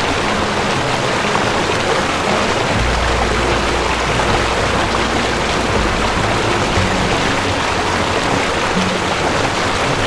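Waterfall: a steady, loud rush of falling water, with low sustained musical notes faintly underneath.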